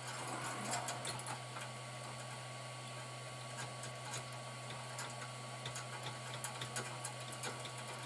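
Faint light clicks of small metal parts being fitted together by hand, over a steady low hum.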